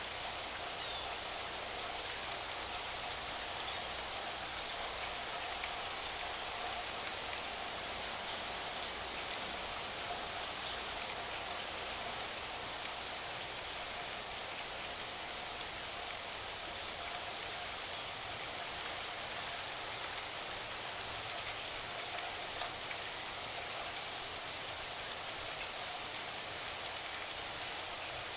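Steady rain falling: an even hiss with scattered light ticks of drops.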